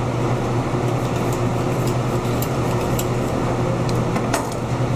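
Steady low hum of room ventilation, with a few faint clicks and a short scrape about four seconds in as a knife works into a beef loin on a wooden butcher block.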